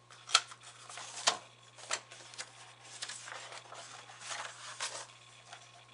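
Paper page of a hardcover picture book being handled and turned: several sharp paper snaps and crackles in the first couple of seconds, then softer rustling swishes.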